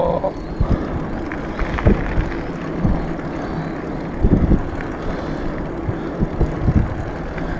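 Wind rumbling on the microphone of a handlebar-mounted camera on a fat bike riding over asphalt, mixed with the rolling noise of the tyres. The rumble is uneven and gusty, with a few brief thumps about two, three and four and a half seconds in.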